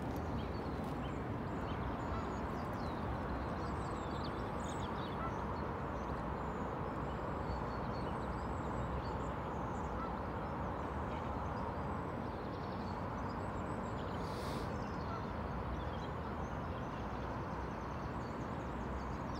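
Lakeside ambience: a steady low background rumble with scattered short calls from ducks and other waterbirds. There is a brief rushing sound about two-thirds of the way through.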